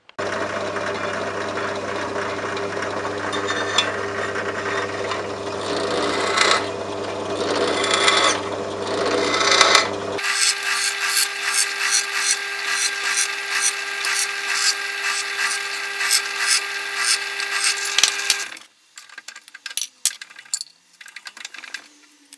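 For about the first ten seconds, a loud, steady power-tool noise with a low hum and a rasping, grinding quality. It then cuts to a bench drill press running with a steady whine while its twist bit bores through an old steel file, chips crackling rapidly, until it stops about three seconds before the end, leaving a few scattered clinks.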